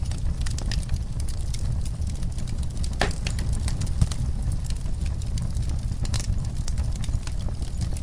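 Wood fire crackling: irregular sharp pops and snaps over a steady low rumble, with a louder snap about three seconds in.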